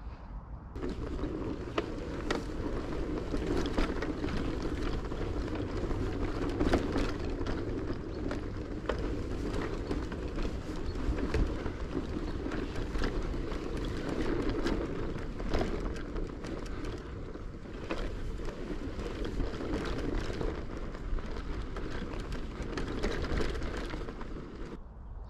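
Steady wind and rolling noise with frequent small clicks and rattles, as of a bicycle ridden over a rough track; it starts about a second in and cuts off just before the end.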